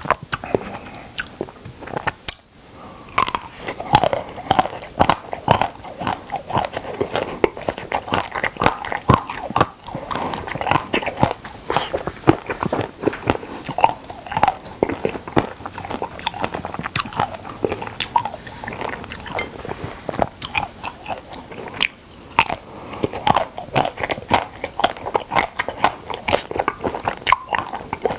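Close-miked biting and chewing of frozen milk caramel ice cream bars: crisp crunches as the frozen bar is bitten, then wet chewing. The crunches and chews go on almost without a break, pausing briefly twice.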